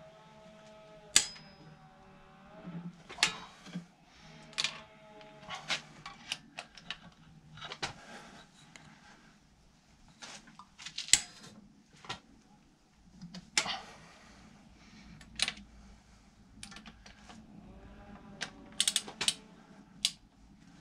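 Ratchet wrench clicking, with tool knocks, as the cylinder head bolts of a THP/N14 engine are turned through the final angle-tightening stage. Sharp, irregular clicks, a dozen or so spread out, some in quick clusters near the end.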